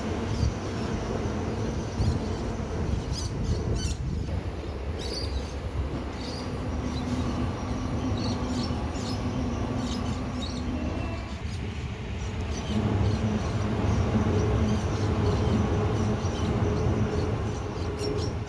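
Adelaide Metro A-City 4000 class electric multiple unit crossing a girder bridge: a steady rumble of wheels on rail with a steady hum, a few sharp clicks a few seconds in, growing louder about two-thirds of the way through.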